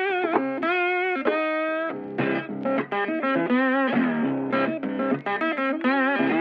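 Background music led by guitar, its sustained notes bending and wavering over changing chords.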